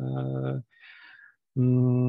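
A man's drawn-out hesitation sound: a flat, held hum, then a short breath in, then a second held hum of about a second.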